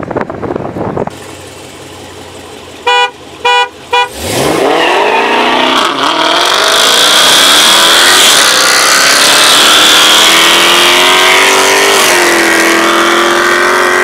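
A car horn honks three short times, the usual start signal for a street roll race. Then a car engine launches at full throttle and climbs steeply in pitch, with a brief dip about two seconds later like a gear change. After that it keeps pulling, very loud and fairly steady, until the end.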